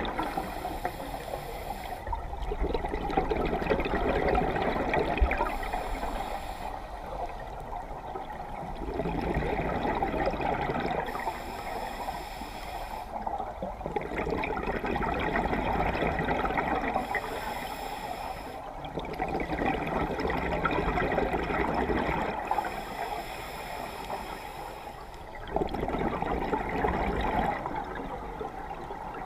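Scuba regulator breathing underwater: a hissing inhale through the regulator, then a louder rush of exhaled bubbles, repeating about every six seconds.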